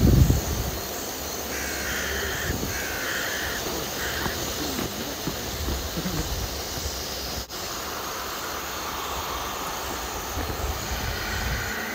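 A loud thump at the start, then crows cawing three times in the first few seconds, over scuffing and rustling.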